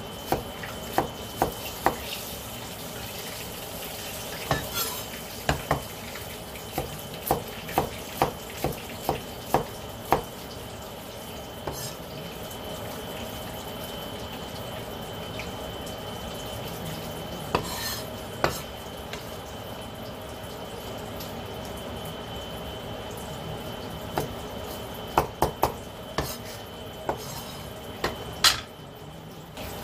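Steel cleaver chopping vegetables on a wooden cutting board: sharp knocks of the blade on the board, in runs of about two a second, with a long pause in the middle. A steady faint hiss and a thin high tone run underneath.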